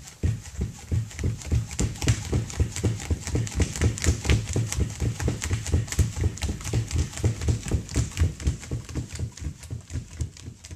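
A fast, even run of thumps with sharp clicks, about four or five a second, fading out near the end.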